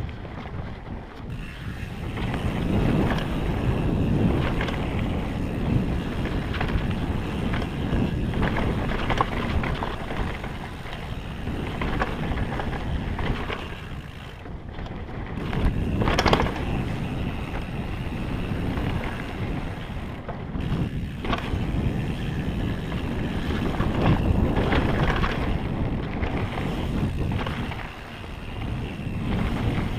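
Wind rushing over the microphone and knobby tyres rolling on a dirt trail as a mountain bike descends at speed, with the bike rattling and knocking over roots and rocks, one knock standing out about halfway through.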